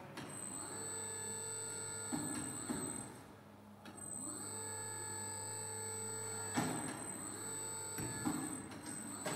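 SICE S300 tyre changer's motor drive running in two runs of a few seconds each: a steady whine and hum that rises briefly in pitch as it starts, with clunks and knocks between runs and a sharp clunk as the second run stops.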